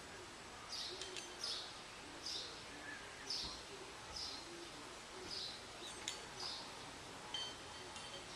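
A bird giving short, high call notes over and over, about one a second, with a few fainter chirps and a brief thin whistle from another bird near the end.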